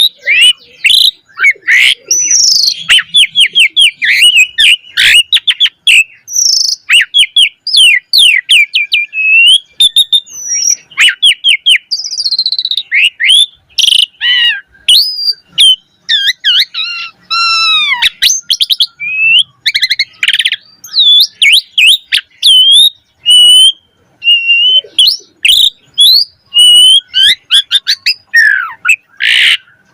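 Asian pied starling (jalak suren) in full song: a fast, unbroken stream of varied whistles, chirps, trills and sweeping notes, packed with mimicked calls of other birds.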